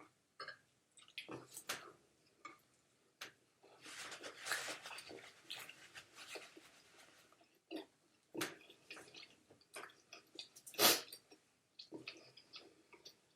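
Close-miked eating: a person chewing a mouthful of food, with many small wet mouth clicks and smacks, a denser stretch of chewing in the middle, and one sharper, louder click near the end.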